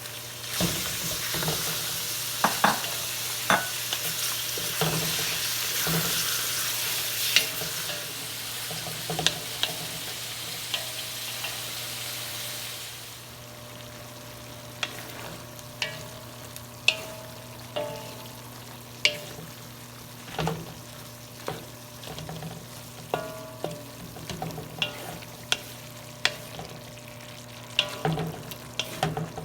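Pork belly strips sizzling as they go into hot oil with sautéed onion and garlic in a frying pan. The sizzle is loud at first and settles to a quieter frying about halfway through, while a spatula stirs and knocks against the pan about once a second.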